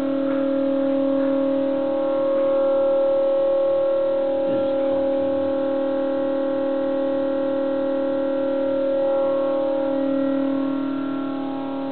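LG refrigerator giving off a really loud, steady drone of several held tones, like an air raid siren, swelling slightly a couple of times. It is a fault noise that the owner puts down to a badly designed fridge.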